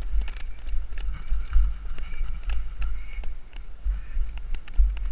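Mountain bike riding fast down a rough dirt trail: wind buffets the bike-mounted camera's microphone as a heavy, uneven rumble, with frequent sharp clicks and rattles from the bike's chain and frame over bumps.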